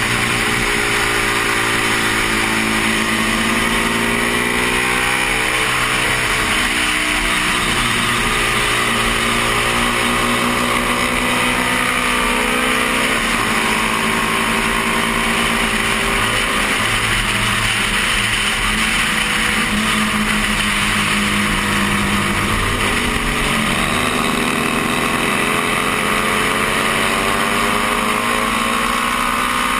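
1972 Honda CB350's parallel-twin engine at racing speed, heard from the rider's helmet under steady wind rush, its pitch climbing and dropping with throttle and gearchanges. About halfway through, passing under the bridge, the engine note breaks up under full throttle: the bike stalls out around 8,000 rpm, a fault the rider is chasing as a cam or timing problem.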